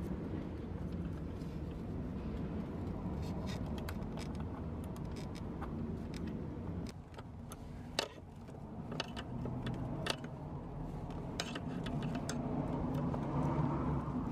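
Scattered sharp metallic clicks and clinks of a screwdriver and worm-gear hose clamps being worked on a copper pipe, over a steady low rumble.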